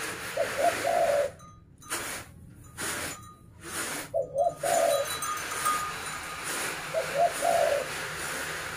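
A dove cooing three times, about three seconds apart, each call two short notes and then a longer one, over a faint steady hiss.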